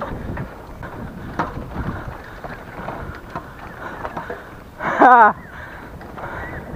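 Mountain bike rolling fast over a bumpy, muddy dirt trail: tyre noise, rattles and knocks, with wind on the microphone. About five seconds in comes a brief, loud warbling tone.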